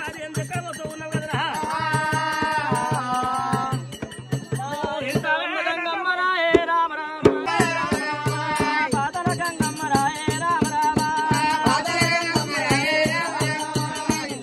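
Oggu katha folk music: a singer holds long, wavering sung lines over a barrel drum beating a steady rhythm, with rattling percussion. The drum drops out briefly about four seconds in, then comes back.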